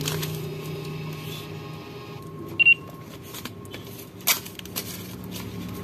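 A single short, high electronic beep about two and a half seconds in, like a shop till or calculator key, then a sharp click a couple of seconds later, over a faint low hum that fades out early on.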